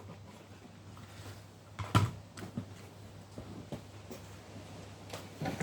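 Handling noise as something is moved: one sharp knock about two seconds in and a few lighter clicks, over a low steady hum.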